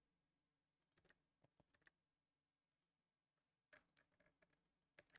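Near silence with faint clicks from a computer keyboard and mouse while vertices are extruded in Blender. The clicks come in two small clusters, one about a second in and one near the end.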